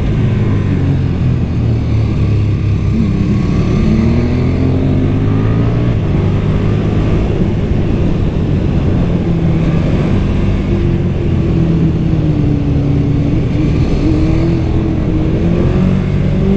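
A KTM 1290 Super Duke R's V-twin engine running through its stock exhaust, heard on board while riding. The engine note climbs over the first few seconds, wavers through the middle and rises again near the end as the rider opens the throttle.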